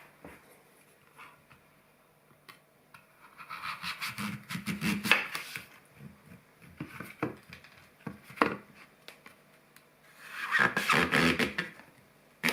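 An apple squeaking in two long bouts, about four and eleven seconds in, with a few sharp clicks between.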